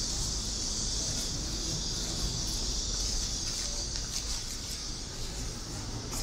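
Steady high-pitched drone of a cicada chorus, with a low rumble of traffic beneath.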